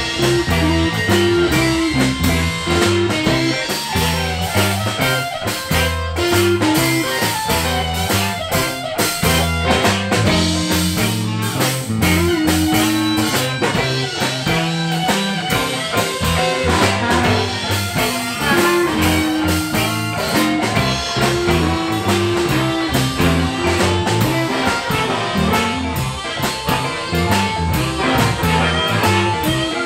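Live blues band playing a shuffle: electric guitars, electric bass with a repeating bass line, and drum kit, with blues harmonica played over the top.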